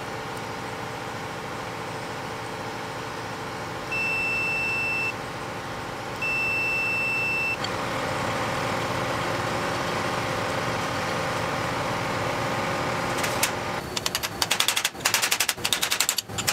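Digital multimeter giving two continuity beeps, about a second and a second and a half long, while its probes test a switch on the Ferrari 308 gearshift housing: each beep means the switch circuit is closed. Near the end comes a fast run of sharp metallic clicks, over a steady background hum.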